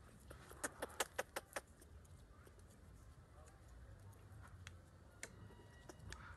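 A quick run of about six sharp clicks about a second in, then scattered fainter clicks: a cat and a baby monkey clambering among the branches of a tree.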